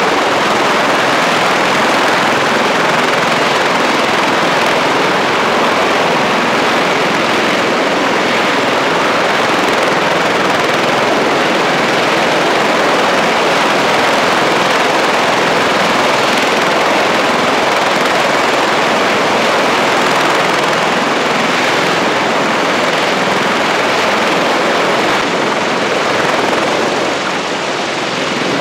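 CH-53E Super Stallion heavy-lift helicopters running on the ground: three-engine turbine whine and rotor noise, loud and steady, with one helicopter lifting off near the end.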